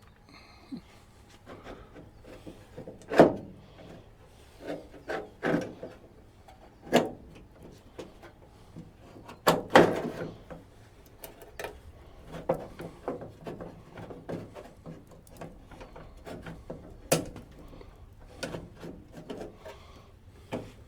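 Hand tools and latch parts being worked inside a pickup's steel door while a replacement door latch is fitted: irregular clicks, knocks and scraping, with sharper knocks about three, ten and seventeen seconds in.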